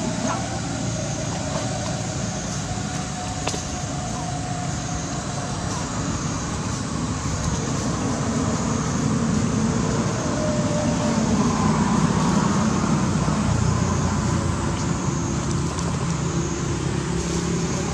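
Steady background rumble of road traffic, swelling louder for a few seconds around the middle.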